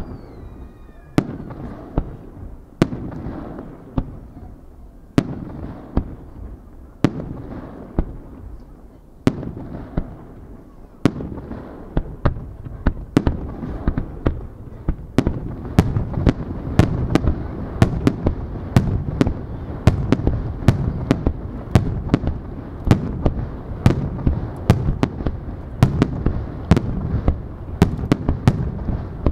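Aerial firework shells bursting: sharp bangs, each followed by a rolling echo, about one every two seconds at first, then from about eleven seconds in quickening into a dense barrage of several bangs a second.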